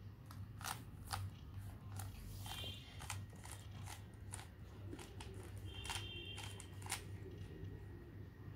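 Layers of a plastic stickerless 3x3 Rubik's cube being turned by hand, with sharp clicks and clacks coming in irregular quick runs, over a steady low hum.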